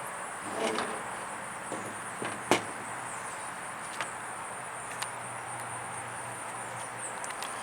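A few sharp clicks and taps of small parts being handled, the loudest about two and a half seconds in, over a steady faint high-pitched whine.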